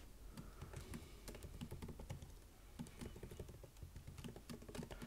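Computer keyboard typing: a faint, steady run of quick, uneven key clicks.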